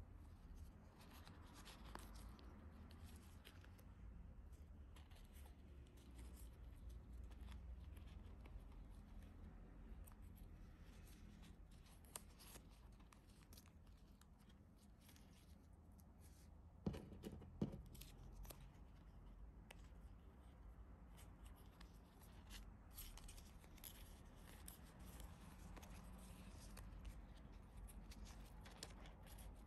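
Quiet handling of sticker sheets and their packaging: faint rustling and small clicks, with two sharper taps a little past the middle.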